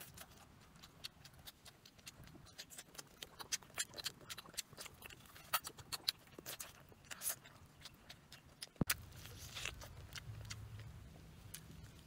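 Close-up mouth sounds of someone eating grilled chicken: irregular wet smacking and chewing clicks, several a second. About nine seconds in there is a sharper click, and a faint low hum runs under the chewing after it.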